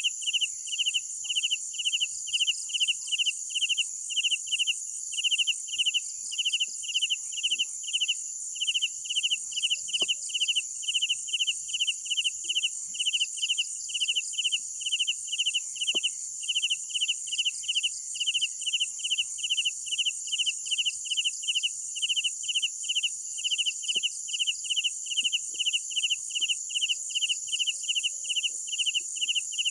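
Crickets chirping at night: a clear chirp repeating about twice a second over a steady, higher-pitched trill from other crickets.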